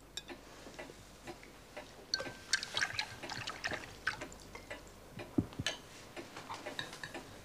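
A clock ticking steadily, with a run of light clinks of a spoon and china plate on the table from about two seconds in, and a single dull knock a little after five seconds.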